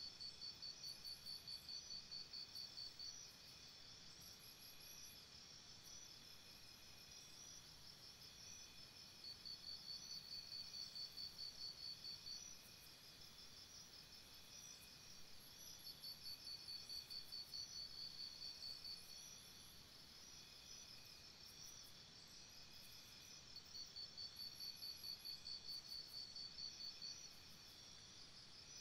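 Faint forest insects calling: a fast pulsed trill that comes in bursts of about three seconds, four times, roughly every six to seven seconds, over a steady high chirring.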